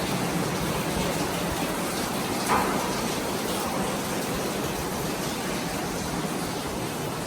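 Steady rush of flowing water, with one short knock about two and a half seconds in.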